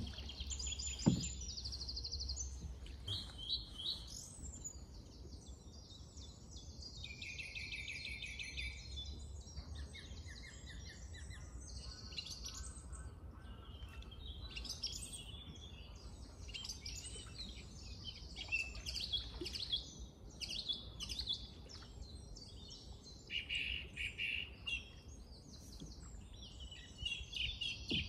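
Several songbirds singing over one another: a busy mix of chirps, trills and quickly repeated notes.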